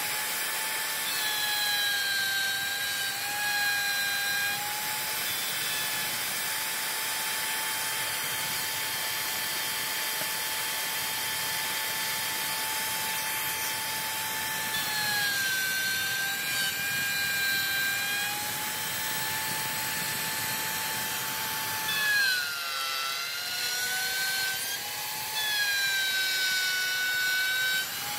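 Plunge router running at high speed while cutting a slot in wood: a steady high whine whose pitch sags several times as the bit is pushed into the cut, most deeply and unsteadily a little past three quarters of the way through.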